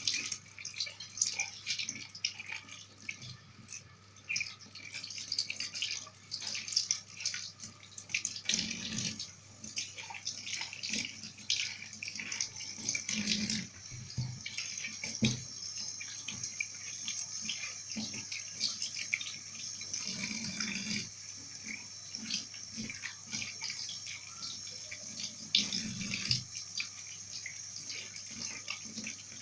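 Kitchen tap running into a sink while tomatoes are washed and rubbed by hand, with scattered knocks and splashes.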